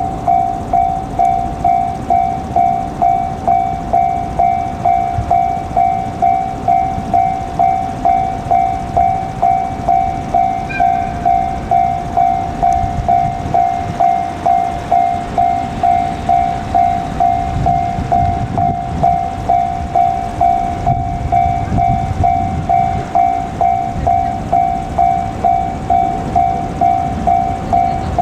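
Japanese railway level-crossing alarm ringing, a single electronic bell tone struck about twice a second, starting suddenly. Beneath it a container freight train hauled by an EF510 electric locomotive rumbles past, loudest about two-thirds of the way through.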